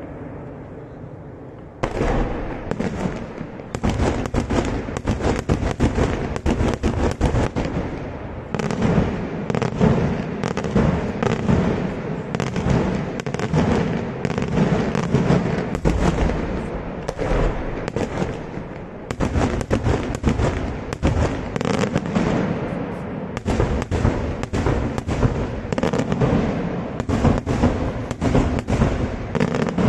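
Daytime aerial fireworks: a dense, continuous string of small bangs and cracks bursting overhead, starting suddenly about two seconds in and running on with a few brief lulls.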